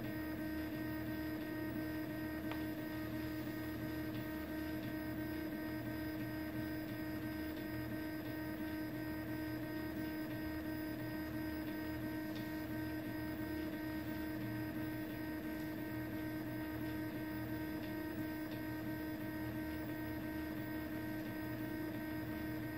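Original Prusa i3 MK3 3D printer humming steadily with a constant tone while its print head stands still.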